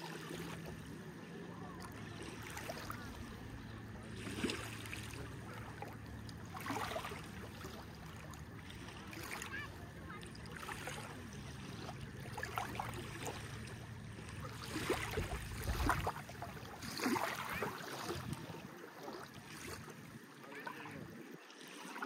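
Small waves lapping at the water's edge, under a low steady engine hum that stops about two-thirds of the way through.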